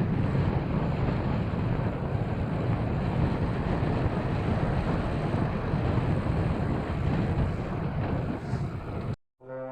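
Steady wind rumble on the microphone of a camera riding along on a moving bicycle. Near the end it cuts off suddenly, and music starts.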